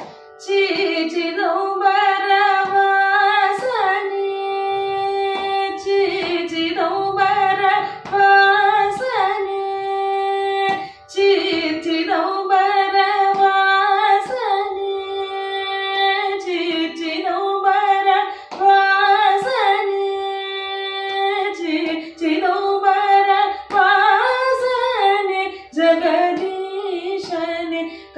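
A woman singing Carnatic music in Chakravakam raga without lyrics, long held notes with quick ornamental wavers between them, over a steady electronic tanpura drone.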